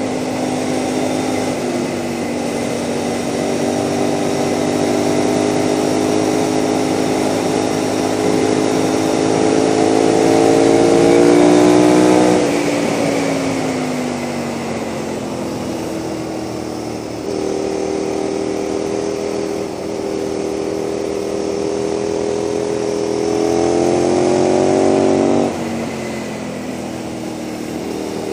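KTM 990 SMR's V-twin through a Leo Vince exhaust, heard onboard while riding. The revs climb slowly for about twelve seconds, then the throttle shuts and the revs sink for a few seconds before picking up again; near the end they jump briefly and then drop off suddenly.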